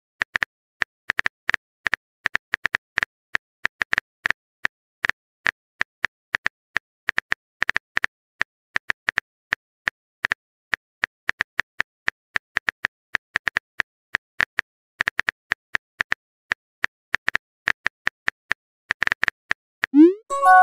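Phone keyboard tap sounds: a long run of short, sharp clicks, uneven and several a second, as a message is typed out. Near the end comes a short rising swoop, the message-sent sound.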